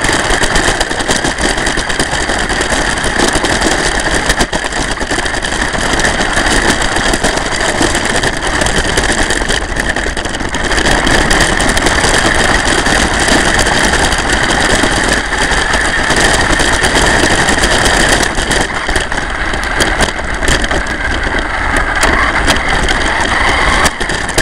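RC car driving over gravel, heard from a camera mounted on its chassis: a loud, steady rough noise of tyres and rattling body, with a high whine from the car's motor and drivetrain.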